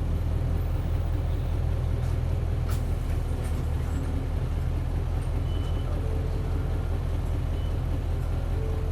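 Isuzu 8PE1-S V8 diesel engine of an Isuzu Cubic city bus running steadily under way, heard from inside the passenger cabin with road noise and a few light rattles.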